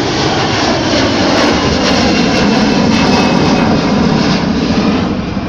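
Jet engines of a Delta Airbus A321 climbing out overhead: steady, loud jet noise with a thin high whine, easing slightly near the end.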